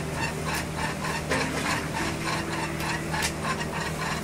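Ladle stirring and knocking in a pot of oil tea, with scattered clicks and light scraping over a steady low hum.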